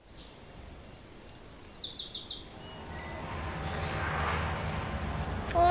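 A songbird singing a fast run of about ten high chirps about a second in, then a similar run starting near the end, over a soft background noise that swells in the middle.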